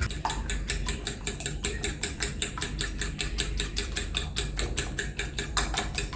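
A rapid, even series of sharp clicks or taps, about six a second.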